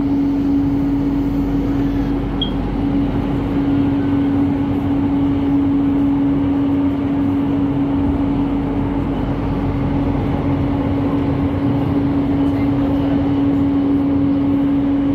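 LRT Jabodebek train in motion, heard from inside the passenger car: a steady running noise with a constant hum held at one pitch.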